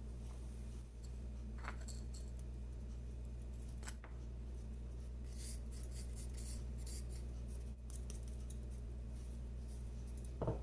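Dried tailed pepper and long pepper being crushed coarsely on a stone: scattered faint crunching clicks, with a sharper click near the end, over a steady low hum.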